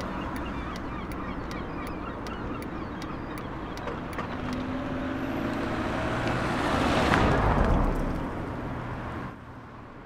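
Renault Clio hatchback driving by on the road, its engine and tyre noise growing louder and passing close about seven seconds in. Near the end the sound drops suddenly to quieter street background.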